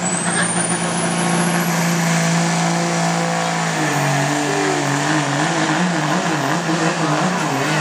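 Turbo-diesel pickup engine at full throttle pulling a weight sled, with a high whine that rises through the first two seconds as the turbo spools. About four seconds in the engine note drops and wavers as it labours under the sled's growing load.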